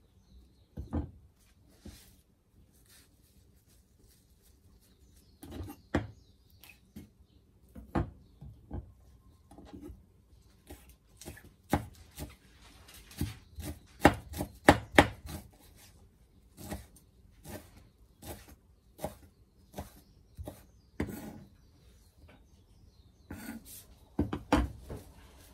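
Irregular knocks and taps of kitchen work, roughly one or two a second, bunching into a quick flurry around the middle.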